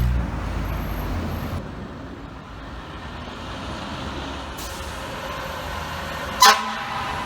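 Heavy truck's diesel engine running, with a low rumble loudest in the first second and a half that then settles to a steady level. A short, sharp loud burst near the end.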